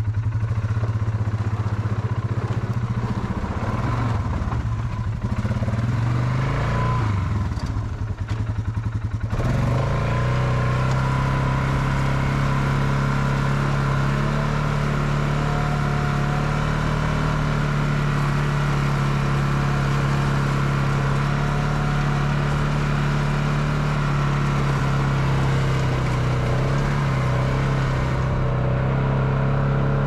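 Polaris Sportsman ATV engine running as the four-wheeler moves with its plow blade. The engine note rises and falls for the first several seconds, then holds steady from about nine seconds in.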